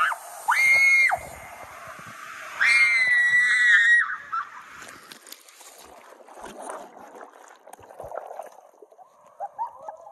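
Two high-pitched screams from a rider sliding down an enclosed water slide tube: a short one, then a longer wavering one. After that comes the muffled rush and gurgle of water as the rider plunges underwater into the splash pool.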